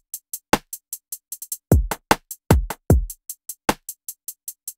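Trap drum loop of 808 kicks that drop steeply in pitch and quick, evenly ticking hi-hats with short rolls, heavily bus-compressed at about 7 dB of gain reduction through the BUSTERse compressor.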